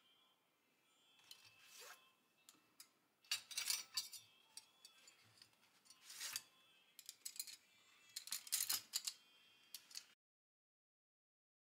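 Paintbrushes being handled in a cloth brush roll: irregular light clicks and scraping rustles as the brush handles and metal ferrules knock and rub against each other, busiest in the middle. The sound cuts off abruptly to silence near the end.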